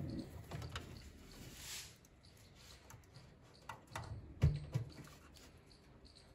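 Faint scattered clicks and rustles of hands handling wiring and a plastic under-hood relay box, with a couple of louder knocks about four and a half seconds in.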